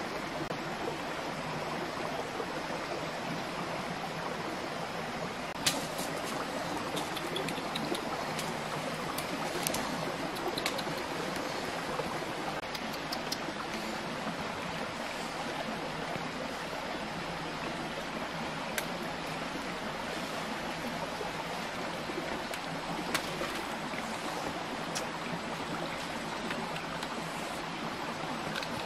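Steady rush of running water from a stream, with a few brief sharp clicks scattered through it.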